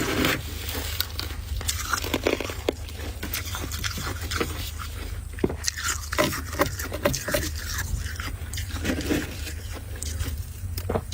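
Freezer frost chunks crunching in quick, irregular crackles, over a steady low hum.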